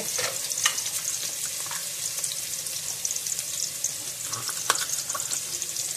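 Garlic frying in hot oil in a pot, a steady sizzling hiss with fine crackling and a couple of sharp ticks.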